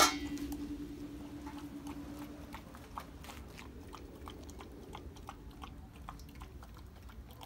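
A large dog eating soft, chunky homemade wet food from a stainless steel bowl: wet lapping, chewing and smacking, irregular and several a second. A sharp click right at the start, and a low steady hum that fades out in the first few seconds.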